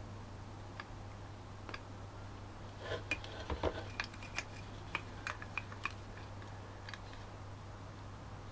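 A scatter of light clicks and taps from small tools and plastic parts being handled, most of them bunched together between about three and six seconds in, over a steady low hum.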